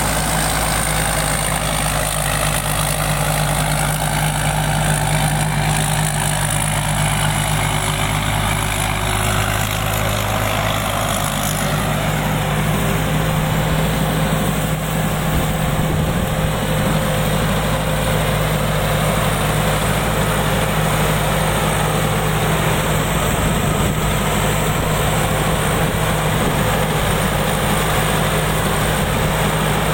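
Combine harvester's diesel engine running at a steady speed, a deep even drone with no revving.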